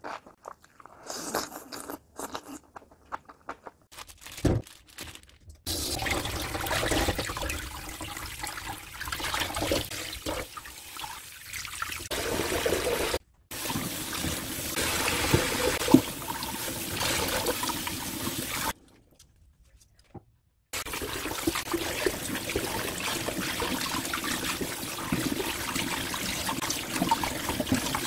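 A few seconds of scattered eating sounds with a thump, then tap water running steadily into a stainless steel colander in a sink as enoki mushrooms are rinsed by hand. The water cuts off abruptly twice and starts again, the second gap lasting about two seconds.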